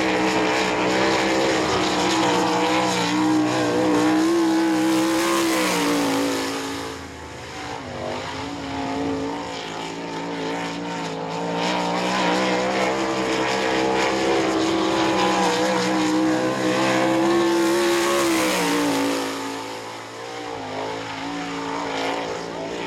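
Winged sprint car's Gaerte-built V8 running flat out on a time-trial lap. The pitch and loudness fall away twice, about seven seconds in and again around twenty seconds in, then climb back.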